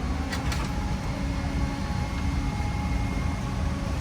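Steady low rumble of a moving vehicle heard from inside its cabin, with two faint clicks about half a second in.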